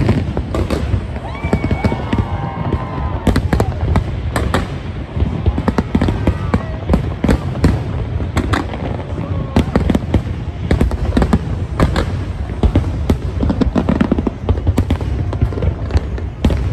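Aerial fireworks bursting in a rapid, irregular barrage of sharp bangs and crackles over a continuous low rumble, with voices in the background.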